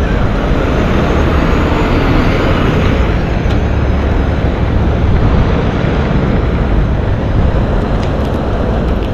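Steady road traffic noise on a busy city street, a continuous wash of passing vehicles.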